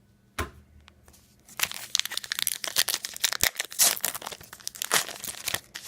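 A trading card pack wrapper being torn open and crinkled in the hands, with a single sharp click about half a second in, then a few seconds of dense crackling and rustling.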